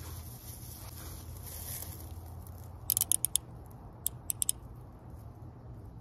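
Metal handcuffs clicking as a bobby pin is worked in the lock behind the back: a quick run of about six sharp clicks about three seconds in, then four more a second later, over a low steady hum.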